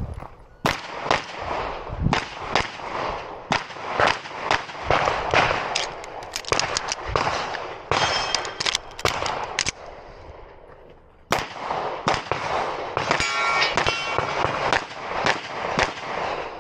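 Rapid strings of pistol shots from a compensated 9mm MPA DS9 Open race pistol, with a short pause about two-thirds of the way through before the firing picks up again. Steel targets ring out between shots twice.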